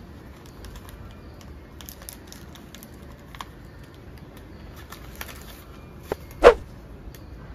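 Light rustling and small clicks of suture packets and instruments being handled in a zippered kit pouch, with two sharp clicks near the end, the second much louder.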